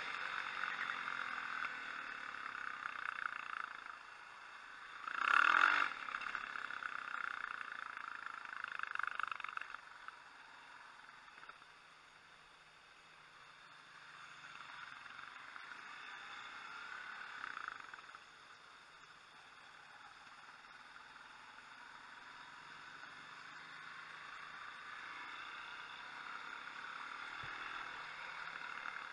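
Motorcycle engine running while riding, swelling and easing as the throttle is opened and closed, with two short loud bursts: one at the start and one about five seconds in.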